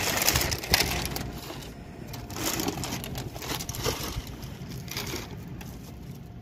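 Thin plastic shopping bags rustling and crinkling as they are handled and lifted into a car boot, loudest in the first second and fading after.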